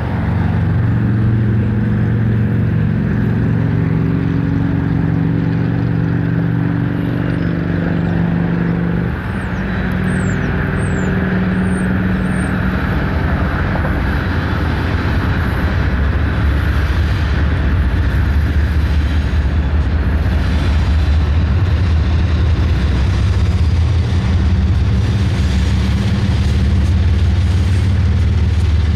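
BNSF diesel-electric locomotives of a stack train approaching and passing at low speed, their engines droning steadily. The drone changes pitch about nine seconds in, then grows into a heavier low rumble as the units come alongside.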